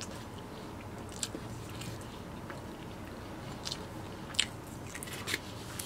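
Close-miked mouth chewing food, with scattered short wet clicks and smacks, the loudest a little over four seconds in.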